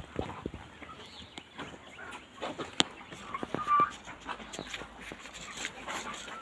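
Chickens in a poultry shed clucking, with a short call about three and a half seconds in and scattered sharp clicks and knocks throughout.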